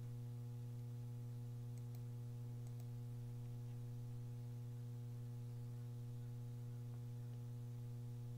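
Steady electrical mains hum with a stack of evenly spaced overtones, with a few faint clicks about two to three seconds in.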